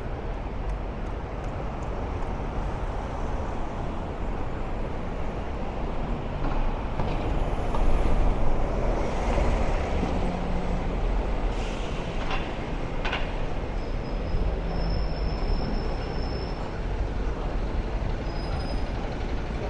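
City street traffic: a steady rumble of vehicles that swells as a heavy vehicle passes about eight to ten seconds in, with two brief high-pitched squeaks a little past halfway.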